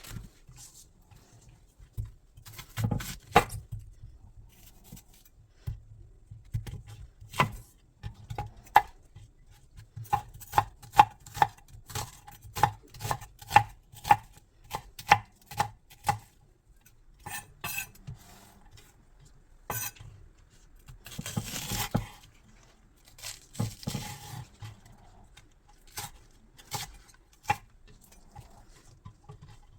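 Kitchen knife chopping on a cutting board in sharp, separate knocks, with a steady run of about two strokes a second in the middle and scattered single strokes elsewhere. A short scraping noise comes about two-thirds of the way through.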